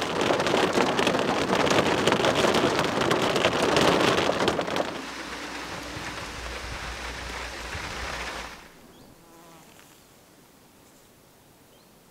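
Heavy rain drumming on a car's roof and glass sunroof, heard from inside the car as a dense, loud patter of many fine clicks. About five seconds in it drops to a quieter steady rush, and after about eight and a half seconds only a faint hiss remains.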